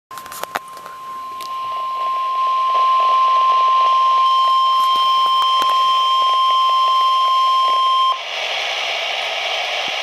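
Midland weather alert radio sounding the steady NOAA Weather Radio warning alert tone for a severe thunderstorm warning. The tone grows louder over the first few seconds, then cuts off sharply about eight seconds in, leaving radio hiss before the broadcast voice. A few clicks come right at the start.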